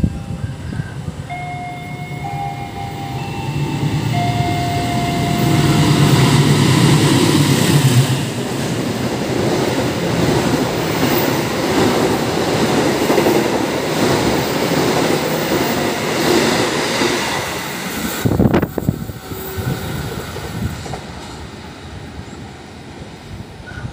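A CC206 diesel-electric locomotive and its passenger carriages pass through the station at speed. Brief horn tones sound in the first few seconds, and the locomotive's heavy rumble is loudest about six to eight seconds in. The carriages follow with a steady rush and wheel clatter, ending in a sharp knock about eighteen seconds in, then the sound fades away.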